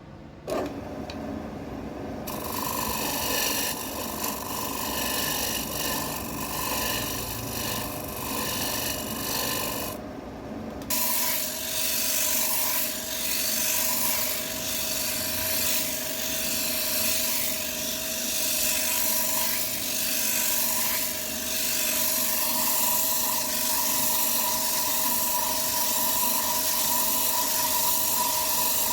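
Wood lathe running with a turning tool or abrasive working against the spinning wood: a continuous scraping rush over a steady motor hum. It breaks off briefly about ten seconds in, then resumes with a steadier hum.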